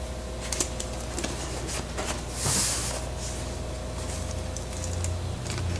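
An HP Pavilion G7 laptop being switched on by hand: a few light clicks in the first two seconds, then a short burst of hiss about halfway through.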